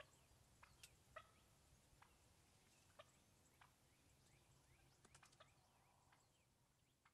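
Faint wild turkey clucks: short, sharp single calls every second or so, with a quick run of several about five seconds in.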